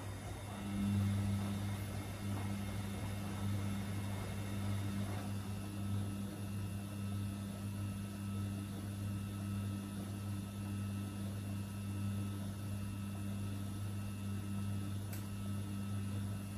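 Two front-loading washing machines, a Samsung and a Gorenje, running their wash cycles with bulky loads tumbling in the drums. A steady machine hum comes in about half a second in and holds, with a faint higher whine that drops out partway through and a small click near the end.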